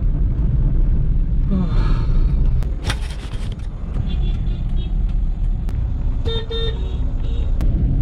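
Steady low rumble of a car's engine and road noise heard inside the cabin of a Hyundai hatchback in traffic, with vehicle horns honking briefly about two seconds in and again about six and a half seconds in.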